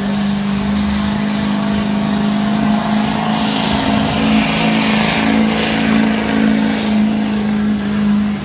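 Diesel pickup truck pulling a weight-transfer sled under full load, its engine held at a steady high drone. A hissing rush swells over it through the middle of the pull.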